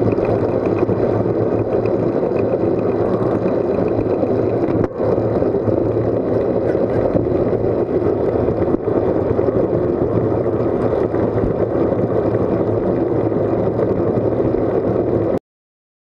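Wind rushing over the microphone of a bike-mounted Garmin VIRB action camera at road-cycling speed, mixed with tyre noise on the asphalt: a loud, steady rush that cuts off abruptly near the end.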